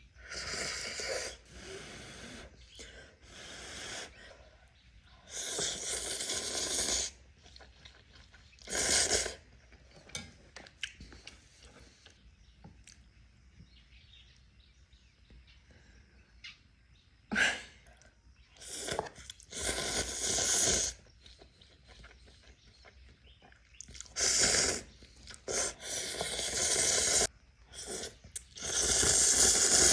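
Person slurping spicy instant noodles close to the microphone, in repeated hissing slurps of a second or two each, with quieter stretches of eating in between.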